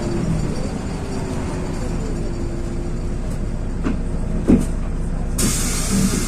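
LiAZ 6213 articulated city bus in motion, heard from inside: a steady rumble of engine and road with a faint whining tone. A single knock about four and a half seconds in, then a sudden hiss of compressed air from the bus's pneumatics near the end as it comes up to a stop.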